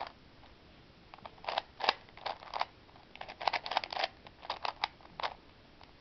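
Plastic 3x3 Rubik's Cube layers being turned by hand in quick succession, giving light plastic clicks and clacks in short clusters from about a second in, as an edge-switching algorithm on the last layer is run.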